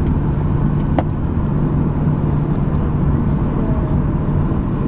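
Steady cabin drone inside a Boeing 737-800 on the ground after landing: a low rumble with a constant hum under it, and a faint click about a second in.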